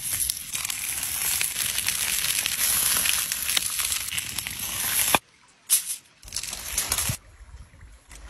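Beef steaks searing on a hot stone slab over a campfire: a loud, dense sizzle with crackling that cuts off suddenly about five seconds in, followed by two short bursts of similar noise.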